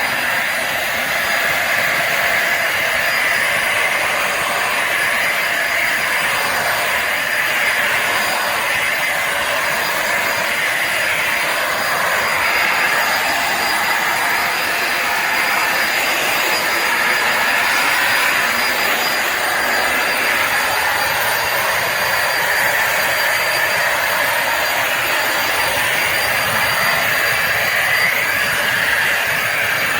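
Bissell Symphony Pet vacuum and steam mop running steadily on the floor, its vacuum motor giving an even rushing whir with a thin high whine above it.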